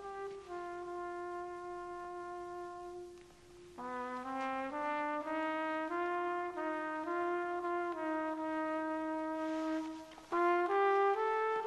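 Brass playing a slow passage of orchestral film score: one long held note that fades out, then a line of held notes stepping upward, and a louder entry near the end.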